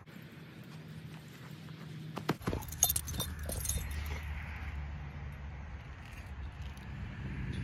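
Dog's collar tags jingling as the dog moves and mouths its rubber toy, with a cluster of sharp knocks and jingles a little over two seconds in.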